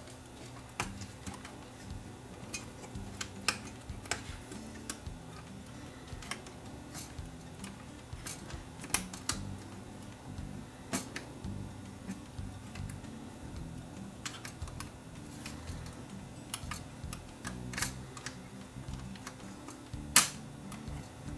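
Small, irregular clicks and taps of plastic and metal parts being handled and fitted into a VCR tape mechanism, with one sharper click near the end.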